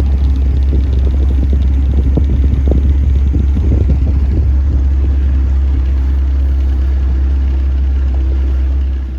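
Motorboat under way: the engine drones steadily under a heavy low rumble of wind buffeting the microphone, with irregular gusts and knocks in the first half. It eases off just before the end.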